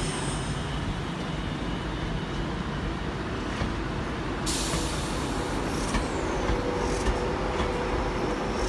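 Virgin Trains Class 390 Pendolino electric train running slowly alongside the platform, a steady rumble of wheels and traction, with a sudden hiss of air starting about halfway through.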